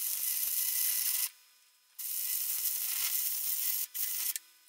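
Arc of a stick welder crackling as a 2 mm electrode lays a bead on steel plate, fed by an Einhell CEN 2000 transformer welder. The arc cuts out for over half a second a little over a second in and twice briefly near the end, striking up again each time.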